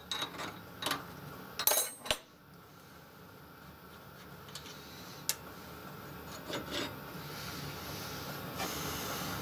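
Clicks and clinks of metal hand tools against a steel lathe handwheel as its graduated dial is taken off, with scraping and rubbing between. The sharpest clinks come in a cluster in the first two seconds, then a few single clicks over a rising rub.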